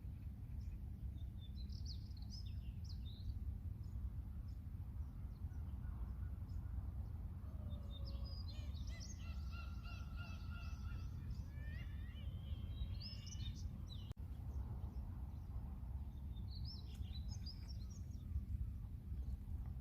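Seagulls calling over a steady low rumble: a few high calls early on, a dense run of calls in the middle, some of them rising, and a few more near the end.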